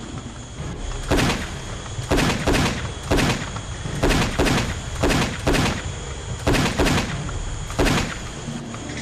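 Rifle shots in a skirmish: about eleven sharp cracks, singly and in quick pairs, each with a short falling tail.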